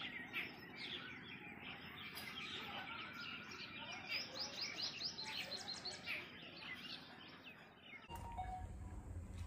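Many small birds chirping and twittering in a dense chorus of short calls, with a quick run of rapid notes about halfway through. About eight seconds in the chirping stops abruptly and a steady low hum takes over.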